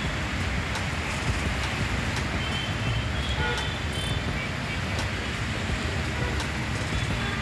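Steady hiss of heavy rain with the rumble of road traffic moving along a flooded road.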